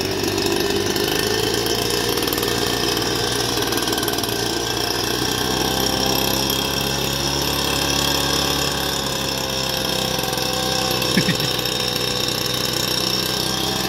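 Gas-powered backpack leaf blower running steadily at high throttle: the engine drone and the rush of air from the tube hold a near-constant pitch and level.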